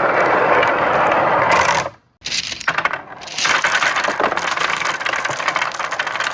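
Marbles rolling and clattering down a marble run track, a dense rattle of many small clicks. The sound cuts out abruptly for a moment about two seconds in, then picks up again.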